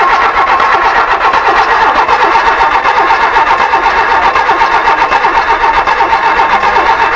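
Truck engine on a test stand being cranked by its electric starter motor: a loud, steady starter whine with a regular pulsing as the engine turns over without catching.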